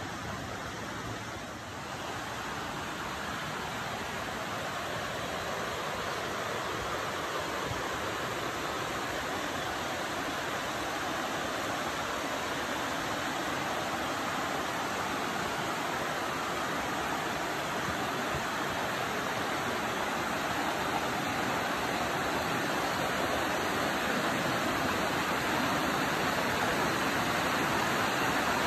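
Creek water rushing over rock cascades and small falls, a steady rushing that grows gradually louder.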